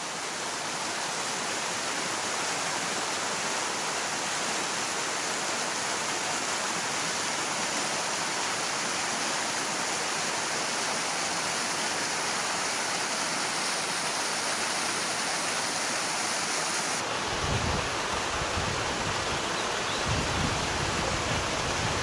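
Waterfall cascading over rock ledges, a steady rushing of falling water. Near the end the sound changes and low, gusty rumbles come in beneath the rush.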